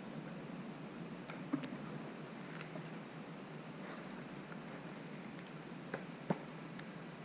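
Gloved hands handling a wet, muddy leather boot: a few small clicks and knocks, sharpest about a second and a half in and three close together near the end, over a steady low hiss.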